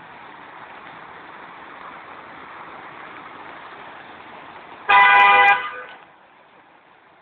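A car horn honks once, a single steady pitched blast of under a second about five seconds in, over a steady noisy wash.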